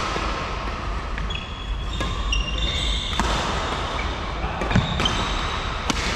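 Badminton rally in a large echoing hall: a few sharp racket hits on the shuttlecock spread through, with sports-shoe squeaks and footsteps on the wooden court floor.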